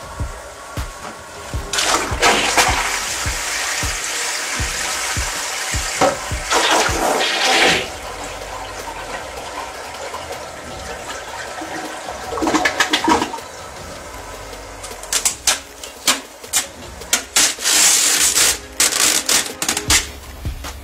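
Toilet flushing with a plastic sticker film sealed over the bowl: rushing water in several surges. In the last few seconds there is a run of sharp clicks and crackles together with another rush of water.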